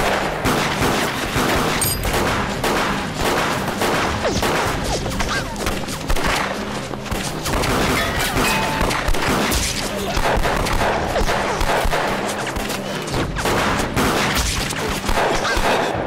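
A gunfight: dense pistol fire from several shooters at once, with shots overlapping in quick succession and no let-up.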